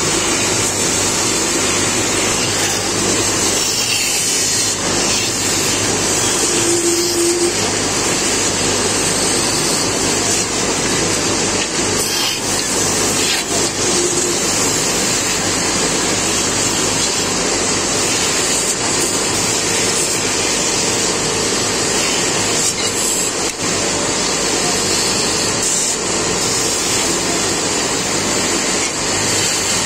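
Wood lathe running with a steady low motor hum while a hand chisel cuts the spinning wood spindle, a continuous scraping noise of the cut.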